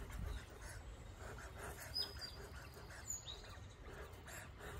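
Birds chirping a few short, high notes over a faint low rumble of outdoor background noise.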